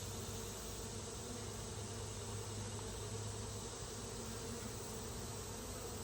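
Honey bees from an opened hive buzzing, a steady hum of many wings with no rise or break.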